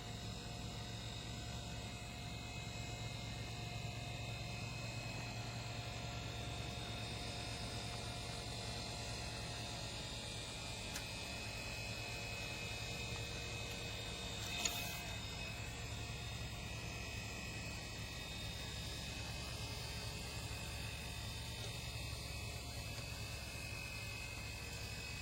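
Water Tech Pool Blaster Max Li cordless pool vacuum's electric motor humming and buzzing steadily, with one short click about halfway through.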